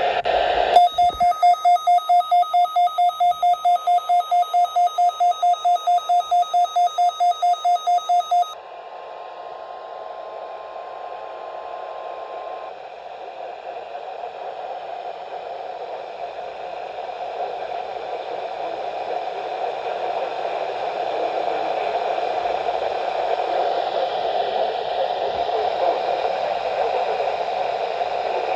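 Midland WR-120 weather radio sounding its alert: a loud beeping tone pulsing about four times a second for about eight seconds, then cutting off. A faint steady tone lingers for a few seconds, then radio static hiss follows, slowly growing louder.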